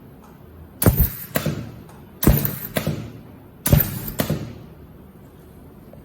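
Pneumatic air cylinder of a single-point ultrasonic spot welding machine driving the welding head down onto the mask material three times, set to 2 kg of air pressure: each stroke a sharp thump followed by one or two lighter clicks as the head lifts.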